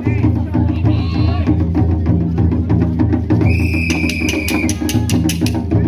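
Japanese shrine-festival music (matsuri-bayashi) with drums beating steadily. A high flute note is held for about a second midway, followed by a run of sharp, ringing strikes.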